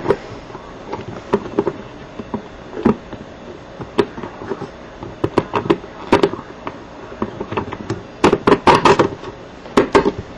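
Small metal washers and a laser-cut metal plate clicking and knocking as they are slid down all-thread rods and set onto a stack of plates. A scattered series of light clicks, busiest about eight to nine seconds in.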